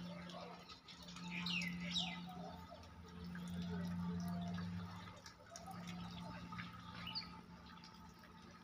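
Birds chirping, with two sharp falling calls about one and a half and two seconds in, over a low steady hum that comes and goes.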